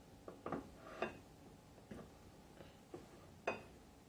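Scattered light clicks and clinks of a glass sesame oil bottle's cap being opened and a metal spoon being handled, a few of them sharper, with a brief ring.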